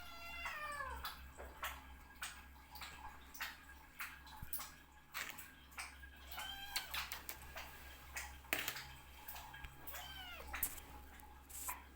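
A cat making little meow-like vocal sounds while eating: three short calls that fall in pitch, at the start, about halfway through and near the end, among quick clicking and smacking chewing sounds.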